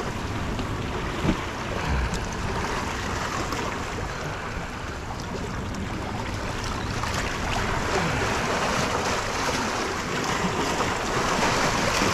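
Surf washing and splashing over rock jetty boulders, a steady rushing hiss, with some wind noise on the microphone.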